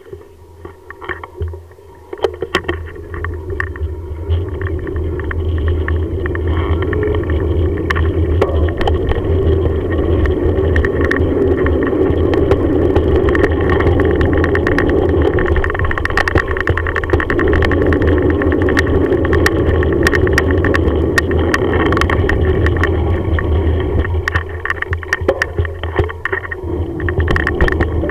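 Bicycle riding along a tarmac path: wind buffeting the bike-mounted camera's microphone, with tyre rumble and frequent small rattles and clicks from the bike. It builds up over the first few seconds as the bike picks up speed.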